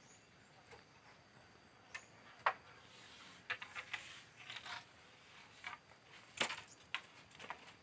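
A series of irregular sharp cracks and clicks, about a dozen over several seconds; the loudest come about two and a half seconds in and again around six and a half seconds.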